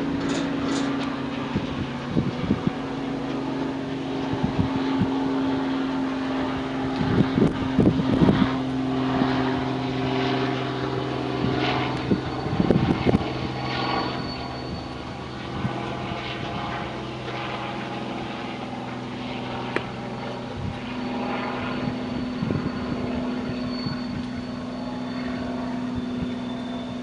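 A steady, even-pitched engine drone, with scattered short knocks and clatters over it.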